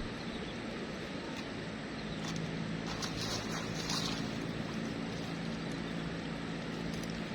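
A steady low engine hum that swells in the middle and eases near the end, over outdoor background noise, with a brief crackle about three seconds in.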